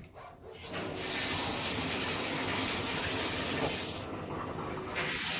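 Bathtub tap turned on about a second in, with water running steadily into the tub. Around four seconds in the sound goes duller for about a second, then comes back as a brighter hiss.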